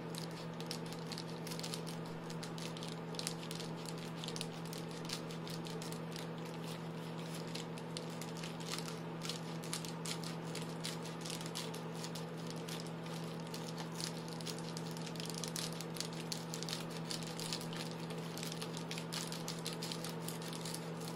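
Scissors snipping through Reflectix foil bubble insulation, the foil and plastic bubbles crinkling and crackling in many small clicks, over a steady low hum.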